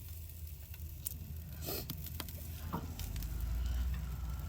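Food sizzling in a pan over a wood fire, with scattered sharp pops and crackles. A low rumble swells about three seconds in.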